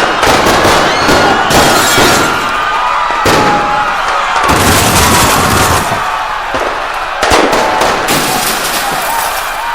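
A dense run of loud bangs and crackles over a noisy crowd-like wash, with some wavering higher tones through it.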